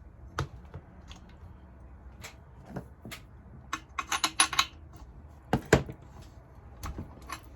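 Metal hand tools and chainsaw parts clinking and knocking on a workbench while the spark plug is dealt with: scattered single clicks, a quick run of clinks about four seconds in, and a heavier knock just before six seconds.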